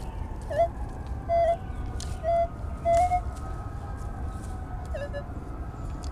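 Metal detector sounding short target tones as its search coil is swept over a freshly dug hole, signalling more metal still in the ground. Five brief beeps, some dipping in pitch at the start, with a longer gap before the last one, over a steady low rumble.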